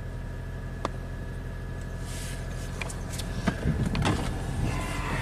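Toyota Camry Hybrid's four-cylinder petrol engine idling steadily, heard from inside the cabin, running to charge the rebuilt high-voltage battery. A faint steady high whine sits over it, with a few light clicks and small handling noises in the second half.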